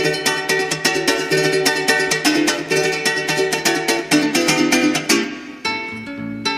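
Background music led by a plucked string instrument playing quick, dense notes; it thins out briefly near the end.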